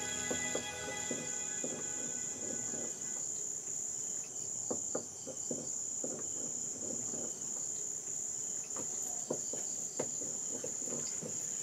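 Crickets trilling steadily and high-pitched, with scattered light crackles and clicks from the cooking underneath.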